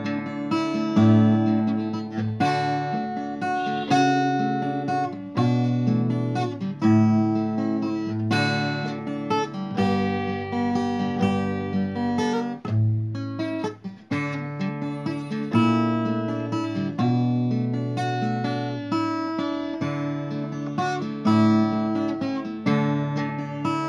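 Background music: acoustic guitar playing plucked and strummed chords, with a brief break about halfway through.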